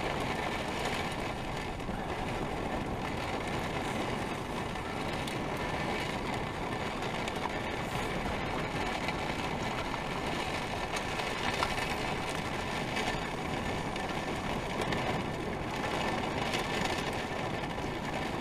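Heavy rain falling on an RV's roof and windows, heard from inside: a steady, dense patter with no letup.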